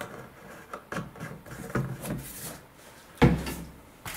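Small parts and tools being handled on a workbench: scattered light clicks and rubbing, with one sharp knock about three seconds in.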